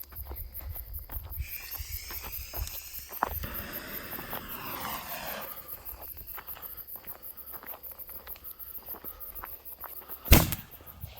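A 60-gram canister firework shell firing from its mortar tube with one sharp, loud thump about ten seconds in. Before it come scattered small clicks and a falling, whistle-like sweep.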